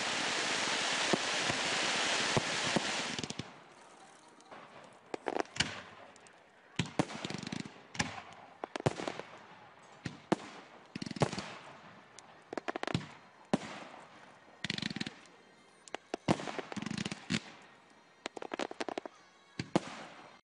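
Fireworks going off at a display: a loud, dense crackling rush for the first few seconds, then separate sharp bangs roughly once a second, each with a short ringing tail.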